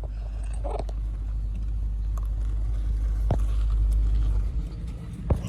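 Car's low engine and road rumble heard inside the cabin while parking: it builds steadily, then drops off a little after four seconds in, with a single sharp click near the end.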